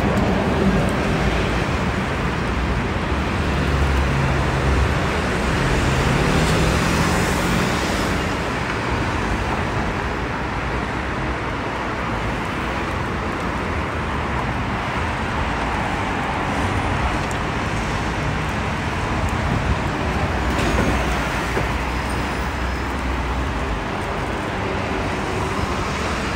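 City street traffic: cars and buses passing, a steady wash of engine and tyre noise, with one engine note rising a few seconds in.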